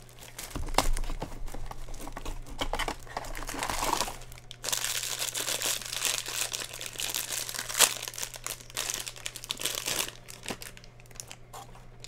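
Crinkling plastic and cardboard packaging being torn open by hand, a Mystery Minis blind box and its wrapping, in dense irregular rustles that are heaviest in the middle and die down near the end.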